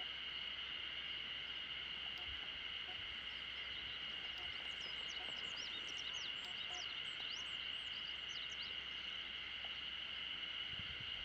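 A steady high-pitched animal chorus, with quick whistled notes, like bird song, rising and falling over it from about four seconds in to about nine seconds.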